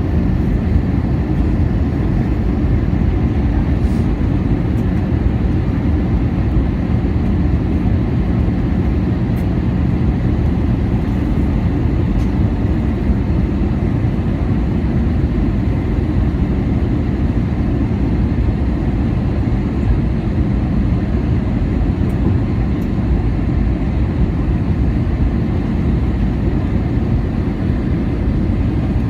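Steady cabin noise inside an Airbus A320-216 airliner in flight on approach: a constant low rush of airflow and engine hum with no distinct events.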